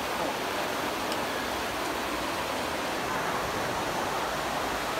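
Trevi Fountain's cascading water rushing and splashing steadily at close range.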